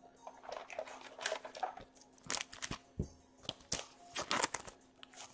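Trading cards and their packaging being handled by hand: rustling and crinkling, then a scatter of sharp clicks and taps as the cards are moved and set down.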